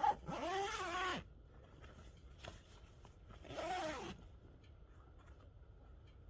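An animal calling twice, each call a pitched cry that arches up and then down. The first lasts about a second; the second comes about three seconds later and is shorter.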